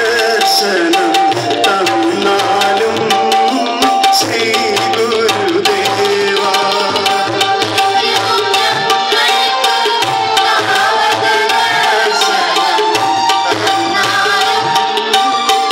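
Devotional bhajan music: a tabla playing a steady rhythm under a held harmonium note, with group singing.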